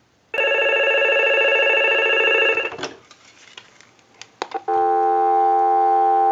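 Mickey Mouse telephone ringing once for about two and a half seconds on a test ring cycle. A few sharp clicks follow, then a steady dial tone through an amplified pickup on the receiver.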